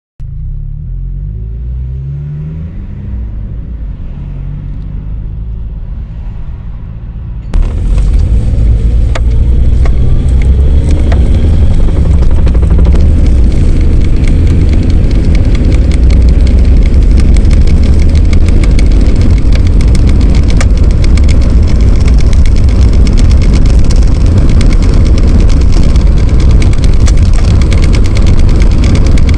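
Toyota Cresta GX71 being driven: the engine note rises and falls as it accelerates for the first seven seconds or so, then the sound jumps suddenly to a much louder, steady rumble of engine and road noise.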